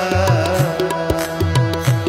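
Tabla playing a quick rhythm, its bass drum bending in pitch, under steady held harmonium chords.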